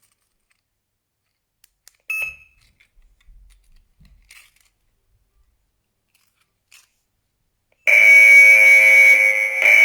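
A single short high beep about two seconds in and a few faint clicks, then about eight seconds in the siren of a Thustar Wi-Fi alarm system starts sounding, loud and high-pitched, holding one steady tone with a brief dip near the end.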